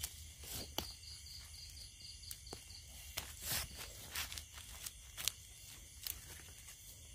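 Irregular rustling and crackling in dry forest leaf litter, like footsteps and hands moving through leaves, over a steady high insect trill.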